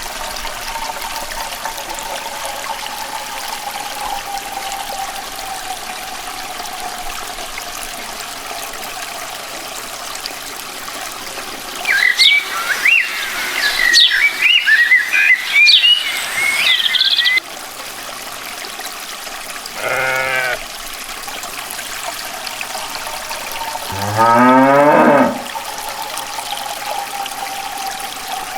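A long, low cow moo about 24 seconds in, with a shorter animal call just before it. Over a steady trickle of water with a faint hum, birds chirp for several seconds near the middle.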